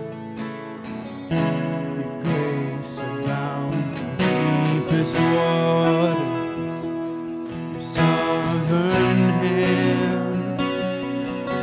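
Two acoustic guitars strummed together, playing a song with steady chords.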